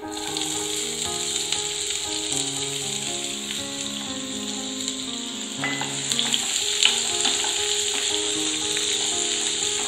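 Chopped onions hitting hot oil with whole spices in a frying pan: a sudden start of sizzling that carries on steadily as the onions fry. A few scrapes and knocks of a spatula against the pan come past the middle as the onions are stirred, with soft background music underneath.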